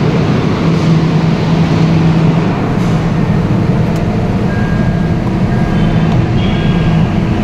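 Steady low mechanical drone of vehicle noise. From about halfway through, faint short high beeps repeat.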